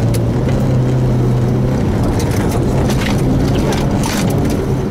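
Volvo 240 rally car's engine running hard under load, heard from inside the cabin. The engine note drops slightly about two seconds in. Scattered short, sharp clatters sound over it.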